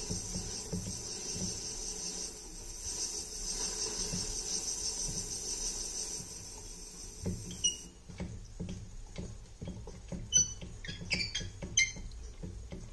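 Antique burin fixe watchmaker's lathe turned by hand: a steady high hiss for about eight seconds, then light clicks and several short squeaks from the wooden handle on the flywheel.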